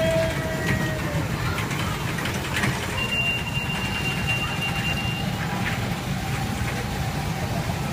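Steady low rumble of a small kiddie truck ride running around its rail track. A thin high tone is held for about two seconds midway through.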